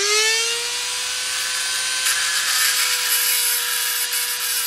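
Corded Dremel rotary tool with a TungstenMate diamond-disc tungsten grinder attachment, coming up to speed with a rising whine and then running at a steady high whine. About two seconds in, a grinding hiss joins it as a tungsten electrode is pressed against the spinning diamond disc.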